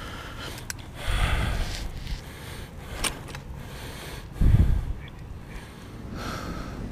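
Handling noise from a small camera being moved and repositioned: a brief rubbing rustle about a second in, a click near three seconds, and a heavy low thump on the microphone about four and a half seconds in.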